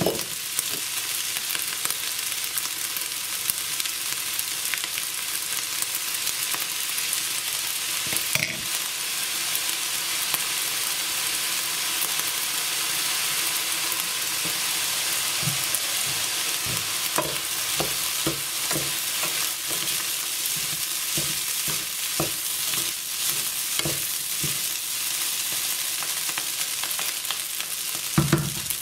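Rice and tuna sizzling in a non-stick frying pan, a steady hiss. In the second half a wooden spoon stirs the rice, knocking against the pan a number of times, most loudly near the end.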